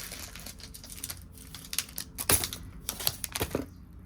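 Light clicks and taps of small objects being handled, with a few sharper knocks in the second half.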